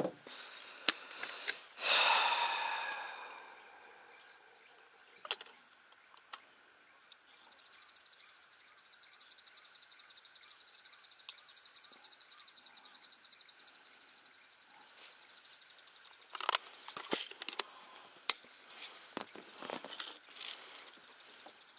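Handling of a small plastic tackle box and the metal fishing snaps inside it: scattered clicks and light rattles, with a louder snap about two seconds in that rings on briefly, and another run of clicks and knocks near the end.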